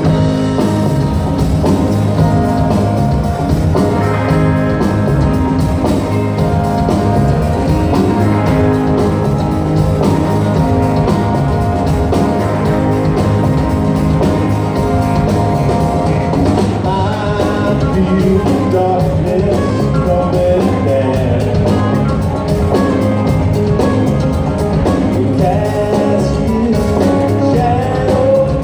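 Live rock band playing the opening of a song: electric guitars, acoustic guitar, drums and organ together, loud and steady. A wavering melodic lead line rises above the band past the middle.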